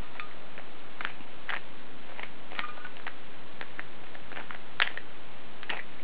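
Plastic 3x3 Rubik's cube being turned by hand: a string of irregular clicks as its layers are twisted and snap into line, over a steady hiss.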